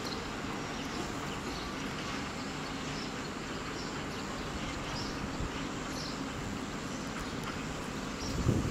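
Steady outdoor background noise with faint bird chirps scattered through it. About eight seconds in, a louder gusty rumble of wind on the microphone sets in.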